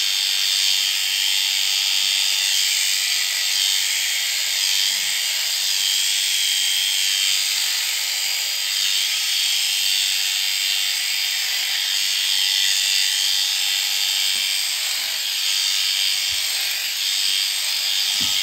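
Electric sheep-shearing handpiece running steadily through a ram lamb's fleece: a high-pitched mechanical buzz as the cutter shuttles across the comb.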